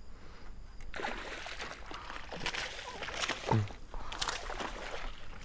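Hooked speckled trout splashing at the water's surface, a run of splashes and sloshing water starting about a second in.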